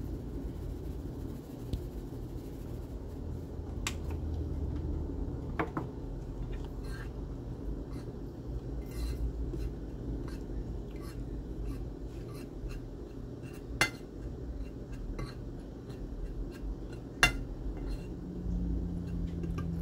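Metal fork stirring seasoned flour on a ceramic plate, scraping softly with scattered clinks against the plate, a few of them sharper, over a low steady background hum.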